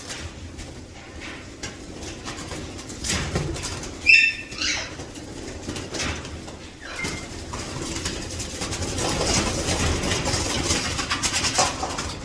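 Pet parrots calling, with one loud squawk about four seconds in, amid small clicks and rustling.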